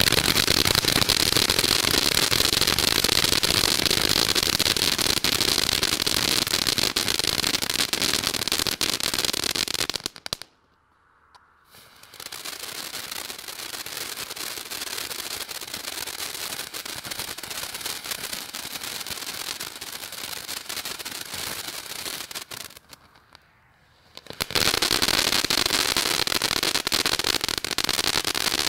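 Black Cat Centrifuge ground fountain firework spraying sparks with a dense crackling hiss. It falls silent for a moment about ten seconds in and comes back quieter. Around twenty-three seconds it cuts out again, then resumes loud for the last few seconds.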